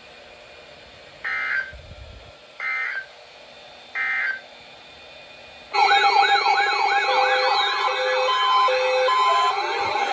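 Three short warbling data bursts about a second and a half apart: the EAS/SAME end-of-message tones closing a NOAA Weather Radio warning. A little over halfway through, a loud siren-like wail begins, with fast repeated up-and-down sweeps layered over steady tones and short repeated beeps.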